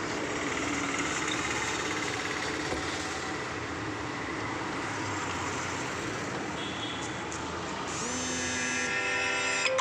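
Steady traffic-like background noise, then a phone ringtone melody starts about eight seconds in.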